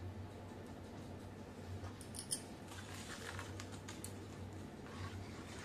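A steel spoon stirring grated cucumber and curd in a stainless-steel bowl: light scrapes and clicks of spoon on metal, with one sharper click a little past two seconds in.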